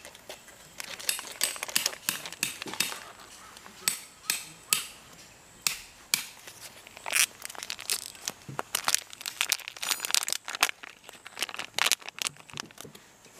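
Crinkling and crackling of something being handled by hand: an irregular run of sharp crackles.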